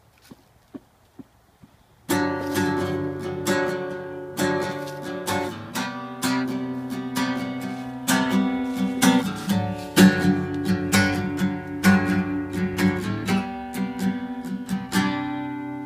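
Steel-string acoustic guitar strummed in a rhythmic chord pattern, starting sharply about two seconds in after a few faint clicks, and ending on a chord left ringing. It is the instrumental opening before the singing begins.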